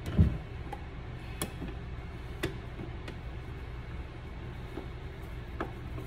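A dull thump just after the start, then a few sparse, sharp clicks and ticks as a hand screwdriver fits and turns the small screws of a light-switch wall plate.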